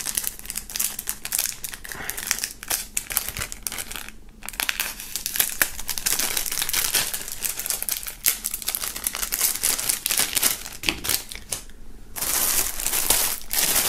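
Thin plastic film wrapping crinkling and crackling as it is cut open with a pocket knife and peeled off a cardboard car air freshener. There is a brief lull about four seconds in.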